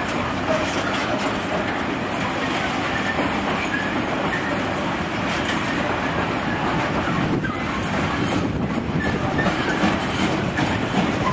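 Freightliner Heavy Haul bogie coal hopper wagons rolling past at steady speed: a continuous rumble of wheels on rail, with a few short faint squeaks from the wheels.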